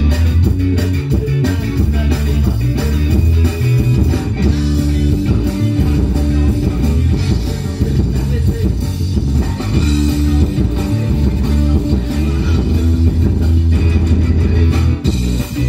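A rock band playing live: electric guitar, bass guitar and drum kit, with a strong, steady bass line under the drum beat.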